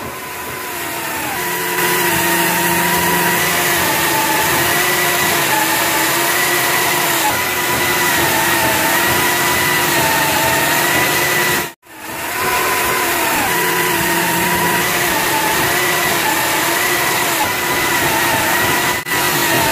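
Large electric chainsaw running as it cuts through a thick timber log: a loud, steady whine that wavers slightly in pitch. It drops out abruptly for a moment about twelve seconds in and again near the end.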